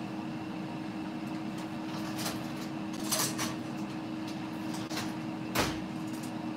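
Air fryer fan humming steadily, with a few knocks and clatters of kitchenware being handled; the loudest knock comes about five and a half seconds in.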